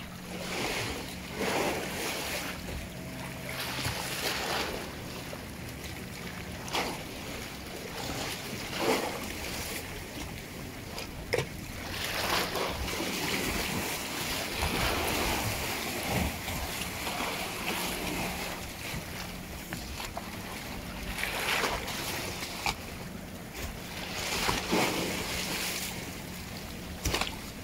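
Sea waves lapping and splashing against the hull of a small rocking boat, coming in uneven swells, with gusts of wind on the microphone and a steady low hum underneath.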